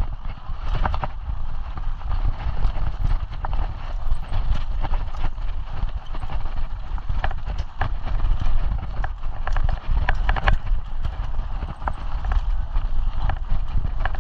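Mountain bike rattling and clattering over a rough dirt trail in irregular knocks, with a steady wind rumble on the microphone.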